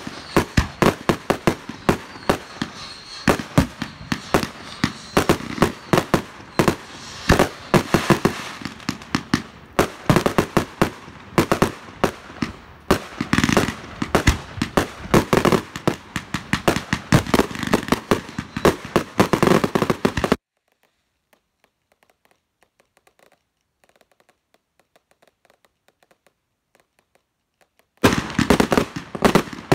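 Consumer firework cakes firing a rapid barrage of launch thumps and aerial bursts, shot after shot. About two-thirds of the way in the barrage cuts off suddenly to near silence for about seven seconds, then resumes just before the end.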